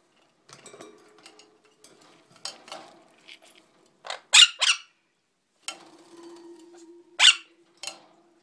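Parrot screeching: two sharp, shrill calls close together about four seconds in, then another loud one and a shorter, softer one near the end. A faint steady hum runs underneath in the second half.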